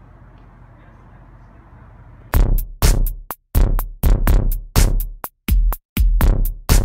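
A steady low background noise, then about two seconds in electronic music starts abruptly: a choppy run of sharp drum-machine hits, about three or four a second, broken by brief dead-silent gaps.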